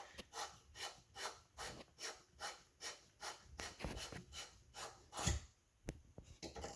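Rhythmic rubbing strokes, about two and a half a second, of a plumbing pipe joint being scrubbed clean, the prep before flux and soldering. One louder knock about five seconds in.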